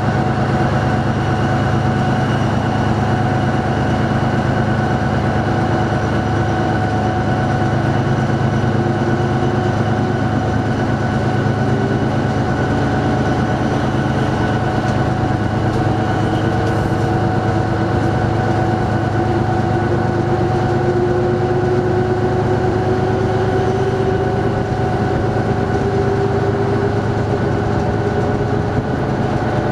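DR1A diesel multiple unit running, heard from a carriage window: a steady diesel drone with the noise of the moving train, and a whine that slowly rises in pitch through the second half.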